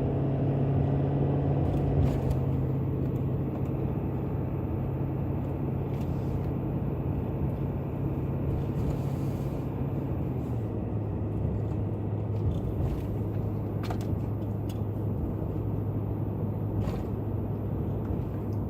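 Ford F350 diesel pickup running down the road under load, heard from inside the cab: a steady low engine hum over road noise. The engine note drops a little about ten seconds in.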